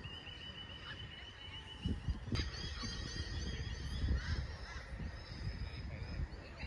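Farm birds calling: a few honking calls among many quick high chirps, over a low rumble on the microphone.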